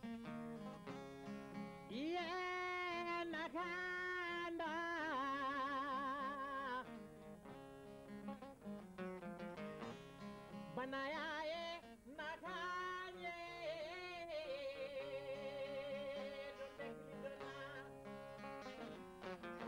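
Steel-string acoustic guitar fingerpicked in a flowing melody, with a singer coming in over it in two long phrases of held notes with wide vibrato: one about two seconds in, the other about halfway through.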